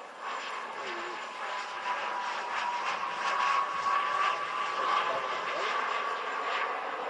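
Four JetsMunt 166 model turbine jet engines on a large RC Airbus A380 model in flight, heard as a steady whine over a hiss. The sound grows louder to a peak about halfway through as the model passes overhead.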